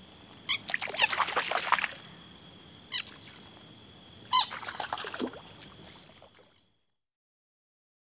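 Green frog (Rana clamitans) calling: a rapid stuttering run of croaks about half a second in, a single short call near three seconds, and another stuttering run about four seconds in. Behind the calls are a faint steady hiss and a thin high tone.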